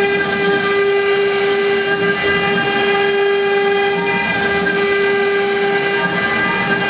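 CNC wood router's spindle running with a steady, unchanging whine while a fine tapered engraving bit carves a relief into a wooden board.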